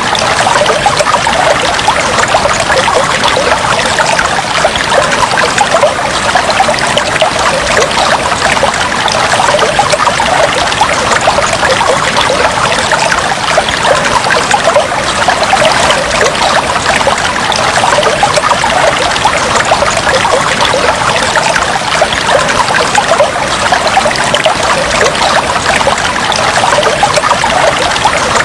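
Aquarium water trickling and bubbling in a steady, unbroken stream.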